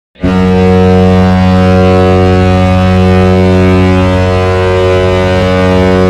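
San Jose Sharks' hockey goal horn sounding one long, steady, deep blast.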